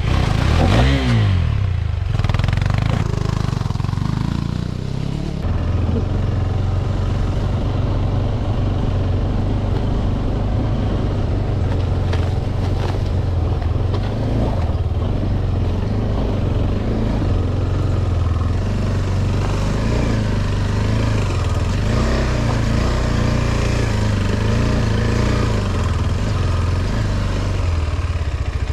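KTM 390 Adventure's single-cylinder engine running under way, with the revs shifting in the first couple of seconds and then holding fairly steady.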